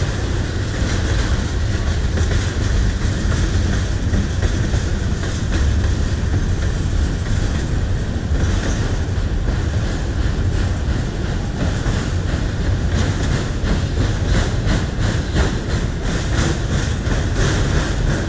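Freight train cars (autoracks and tank cars) rolling past on the rails with a steady, loud rumble of wheels on track. In the second half, a quick run of clickety-clack sounds comes from the wheels passing over rail joints.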